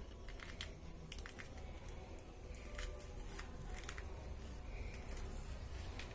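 The back of a steel spoon scraping seeds and pith out of a halved bitter gourd: scattered short scrapes and clicks over a low steady hum.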